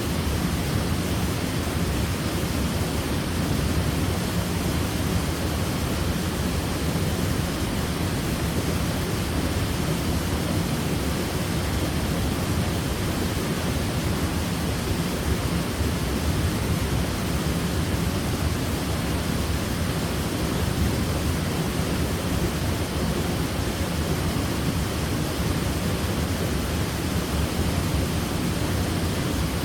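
Waterfall: water pouring and splashing in a steady, unbroken rush, strongest in the low range.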